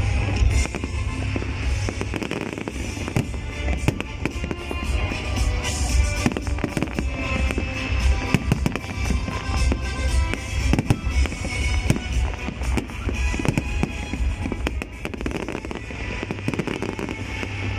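Fireworks display: shells bursting in rapid succession, many bangs and crackles one after another, with music playing underneath.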